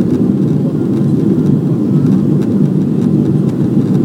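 Steady low rumble of a Boeing 777-300ER's GE90 engines and rushing air, heard inside the passenger cabin during the climb after takeoff.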